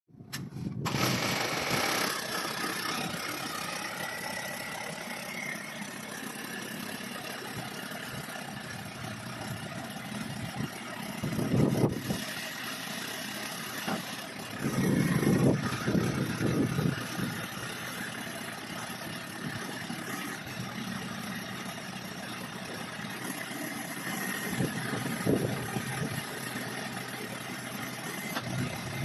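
Small crawler water-well drilling rig's engine running steadily, with louder surges about twelve seconds in, from about fifteen to seventeen seconds, and again near twenty-five seconds.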